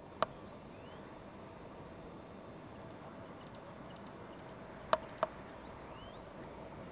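Quiet open-air ambience with faint, short bird chirps. A single sharp click comes just after the start, and two more clicks come close together about five seconds in.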